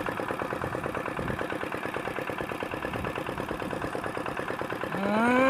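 A small engine idling with a fast, even chugging. Near the end a louder rising tone comes in over it.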